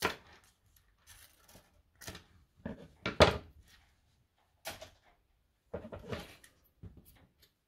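A nickel strip being handled and laid on a wooden workbench. It makes a series of short knocks and scrapes, the loudest about three seconds in.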